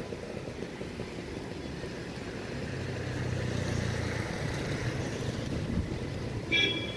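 Electric locomotive-hauled express train approaching, a steady low rumble that grows a little louder, with a low hum in the middle and wind on the microphone. A short high-pitched tone sounds near the end.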